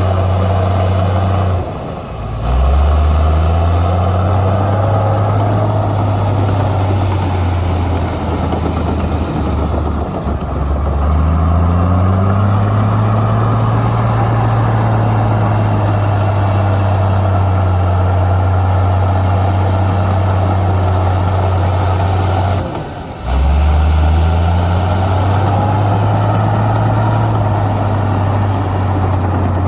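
Heavy diesel engine of earthmoving equipment running steadily under load. Three times it briefly drops off and then climbs back up in pitch: about two seconds in, around ten seconds in, and a little past three-quarters of the way through.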